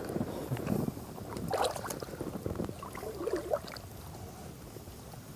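Water sloshing and splashing irregularly against the side of an inflatable raft, busiest in the first two seconds and again around three seconds in, then settling to a low wash.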